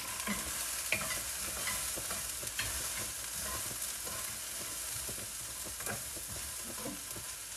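Green beans sizzling in a hot pan as they are stirred, with a steady hiss and occasional light scrapes and clicks of the stirring utensil against the pan.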